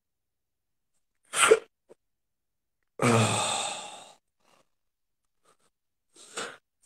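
A man's long voiced sigh about three seconds in, fading away over about a second, with short breaths before and after it.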